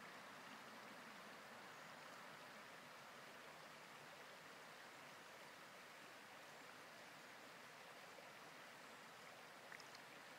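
Near silence: the faint, steady rush of a shallow river running over stones, with a couple of faint clicks near the end.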